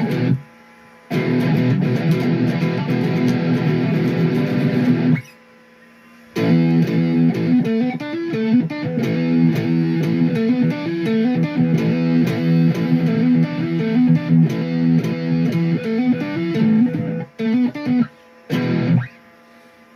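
Electric guitar played through an amplifier using the amp's built-in distortion: a chord held for about four seconds, a brief stop, then a long run of quick picked notes, ending in short broken stabs.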